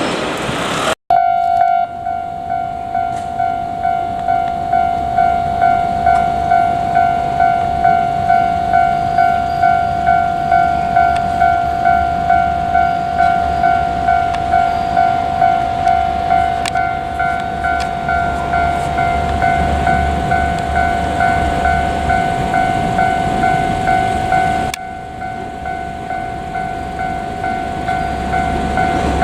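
Japanese railway level-crossing warning bell ringing steadily at about two dings a second, over the low rumble of a train on the line. There is a brief dropout about a second in, and the rumble grows near the end.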